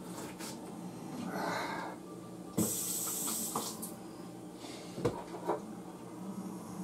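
Handling noises: a burst of rustling lasting about a second, starting two and a half seconds in, and a few light knocks, over a steady low hum.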